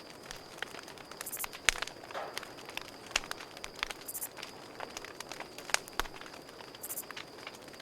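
Campfire crackling, with frequent irregular sharp pops and snaps, over a steady high insect trill such as crickets, plus short, very high buzzy bursts every two to three seconds.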